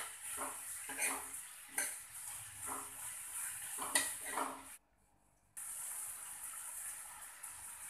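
Steel spoon stirring and scraping onions and tomatoes in a black kadai, clinking against the pan several times over the steady sizzle of the vegetables frying in oil. The sound cuts out briefly about five seconds in, then the sizzle goes on without the clinks.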